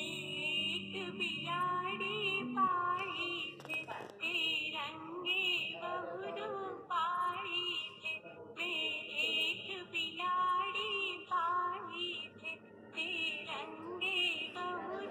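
Background music: a song with a high-pitched singing voice wavering over an accompaniment.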